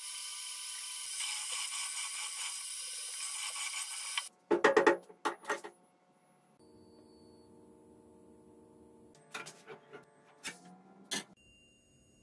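Fabtec drill-milling machine's end mill cutting into a steel part clamped in a machine vise: a steady high hiss that stops abruptly about four seconds in. Then a quick run of loud metallic clanks and clinks as the steel is handled at the vise, and a few more knocks near the end.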